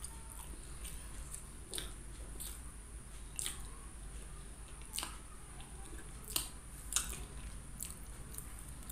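Close-miked eating sounds of a person eating with her fingers: wet chewing and lip smacks, with scattered sharp mouth clicks, the loudest about six and a half and seven seconds in.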